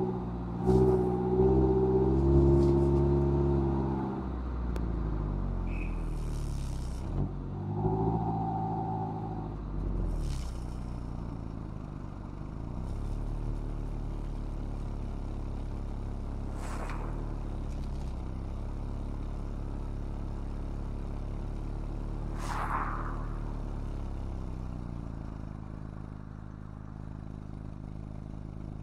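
Mazda MX-5's inline-four engine through its stock exhaust, pulling under throttle for the first few seconds and again briefly about eight seconds in, then easing off to a quieter steady run at low revs. A few brief sharp knocks come over the engine sound.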